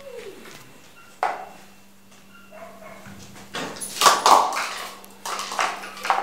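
A puppy plays with a small plastic toy on a hard tiled floor. There is a sharp knock about a second in, then bursts of clattering and scuffling.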